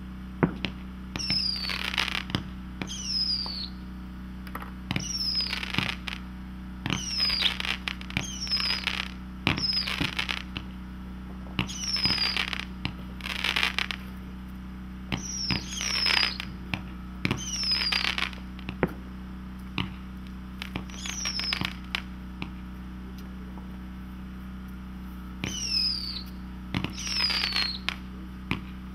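Consumer firework firing shot after shot, each a short falling whistle followed by a crackling burst, every second or two, with a pause of a few seconds near the end before a last few shots.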